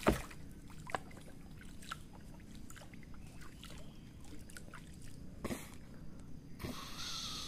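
Water trickling and sloshing, with a sharp knock at the start and small scattered clicks, a short rush of splashing noise about five and a half seconds in.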